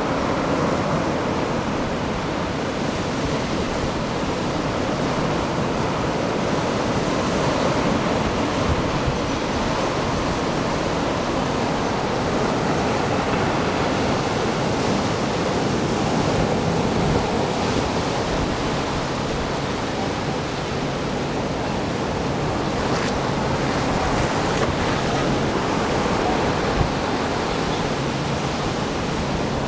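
Ocean surf: waves washing onto a beach in a steady, continuous rush.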